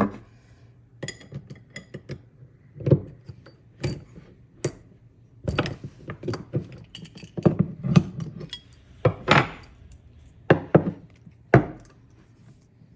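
Two 19 mm (3/4 inch) wrenches clinking and knocking against the hose's brass fittings as the fittings are loosened, in irregular metal clanks.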